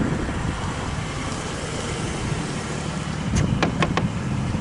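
Steady low rumble of a car running, with a few brief high-pitched sounds about three and a half seconds in.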